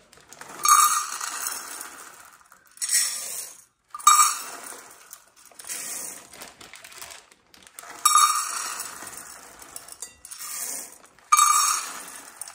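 Dry pinto beans clattering into a glass bowl as they are tipped from a stainless steel measuring cup, and poured from the bag into the cup. There are about five pours a couple of seconds apart, each a sudden rattle that trails off as the last beans settle.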